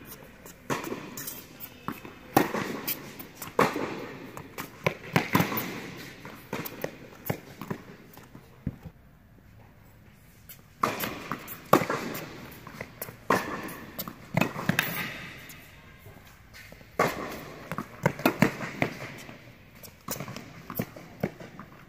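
Tennis rally on an indoor hard court: sharp pops of the ball struck by the rackets and bouncing on the court, coming in irregular runs with a short lull about halfway through.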